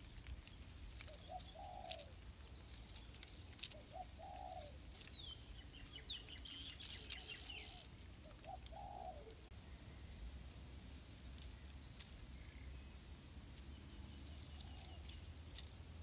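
A bird cooing: four short, soft two-note calls a couple of seconds apart in the first half. Thin high chirps from small birds come in around the middle, over a steady high-pitched background tone.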